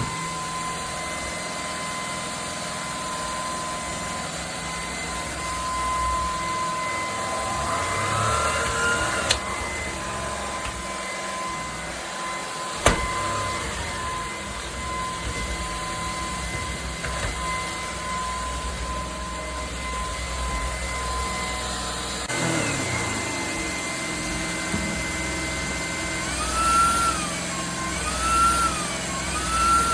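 Cordless stick vacuum cleaner running with a steady motor whine, with two sharp clicks in the first half. The motor pitch rises and falls once about eight seconds in, then three times in a row near the end.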